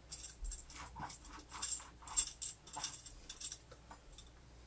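Light clicks and scrapes of small metal motor parts being handled and fitted together, a few irregular taps a second.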